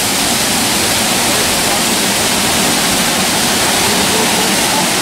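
Waterfall's falling water rushing steadily, a loud, even wash of noise.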